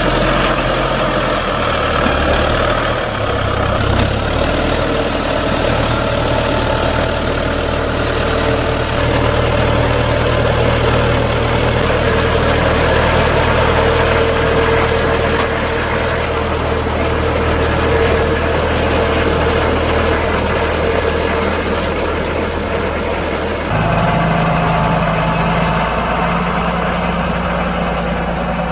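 Deutz-Fahr Agrotron K100 tractor's diesel engine running steadily as it hauls a Kaweco forage wagon onto the silage clamp and unloads chopped maize. About 24 seconds in the sound changes abruptly to a different tractor engine idling close by.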